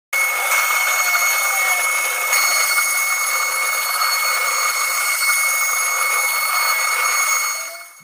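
CNC router spindle carving a relief into a wooden panel: a steady high-pitched whine over the hiss of the bit cutting wood, fading out near the end.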